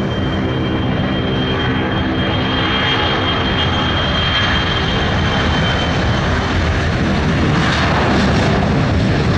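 Boeing 737 Classic's CFM56 turbofan engines at high power as the jet begins its takeoff roll: a steady rush of jet noise with a thin high whine, growing gradually louder. The whine fades about two-thirds of the way through.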